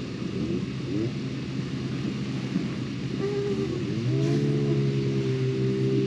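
A small engine or motor rises in pitch about three seconds in, then runs at a steady pitch, over a low rumble.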